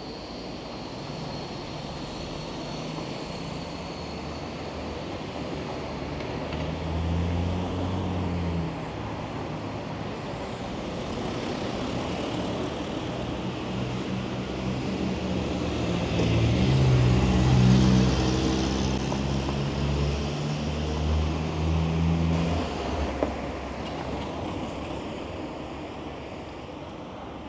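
City street traffic: motor-vehicle engines passing and idling, swelling to their loudest about two-thirds of the way through and then fading, with a short sharp tick near the end.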